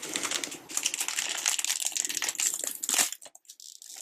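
Plastic packaging bag crinkling and rustling as it is handled and pulled open to free a small vinyl figure; the crinkling dies away about three seconds in.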